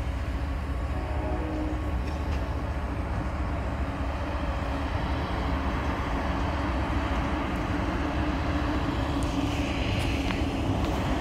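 Freight train hauled by a KZ8A electric locomotive running past: a steady rumble of wheels on rails with a steady hum over it, and a brief hiss about two thirds of the way in.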